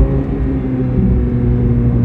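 Chevrolet Corvette C8 Z06's flat-plane-crank V8 running at a steady pitch under light load, over low tyre and road rumble.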